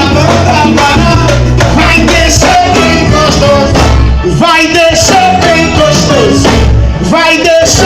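Live pagode samba music: a band with a steady low beat and percussion, and a melody line that could be sung or played.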